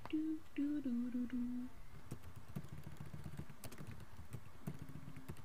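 A woman humming a few short notes that step up and down, over scattered clicks of typing on a computer keyboard, with another short hummed note near the end.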